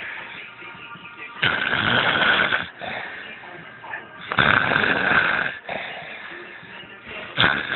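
A man snoring loudly, three rough snores about three seconds apart, each lasting over a second, with quieter rasping breaths between them.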